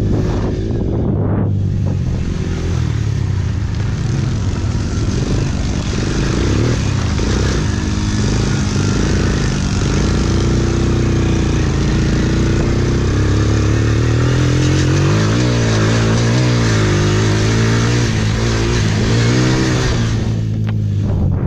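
Small youth quad (ATV) engine running hard at race pace, its pitch rising and falling over and over as the throttle is worked, over a steady rushing hiss.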